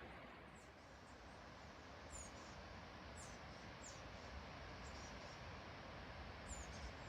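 Faint outdoor ambience: a steady low rush of wind, with about five short, high bird chirps scattered through it.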